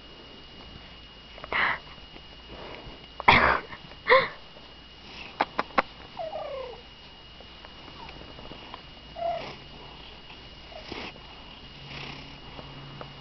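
A pet cat making a string of short, odd noises as part of its unusual purring. The noises are several brief breathy bursts, the loudest about three to four seconds in, three quick clicks, and a short falling call.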